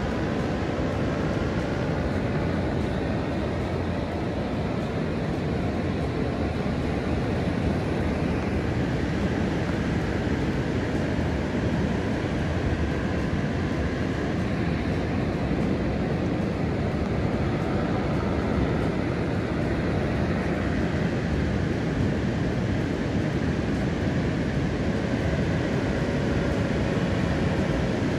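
Paramotor engine and propeller droning overhead, the faint pitch of the drone bending slowly up and down as it flies, over a steady rushing noise of wind and surf.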